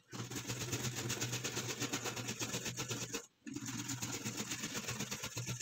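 A carrot being grated on a metal box grater in fast, even strokes, the grating stopping briefly a little past three seconds in and then going on.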